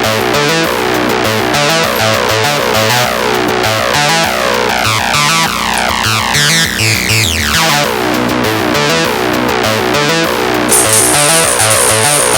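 Electronic background music with synthesizer and a steady rhythmic bass line.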